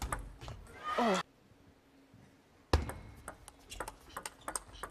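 Table tennis ball clicking off bats and table in a rally, then a short, loud shout from a player about a second in, cut off abruptly. A loud sudden hit comes midway, followed by more scattered ball clicks.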